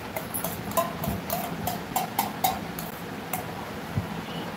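A quick, irregular run of light clicks and taps, about a dozen over the first three and a half seconds, mixed with a few short high chirps, then a soft low thump near the end.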